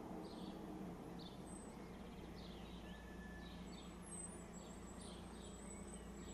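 Outdoor ambience of small birds chirping, with short high calls repeating about once a second over a faint steady low rumble.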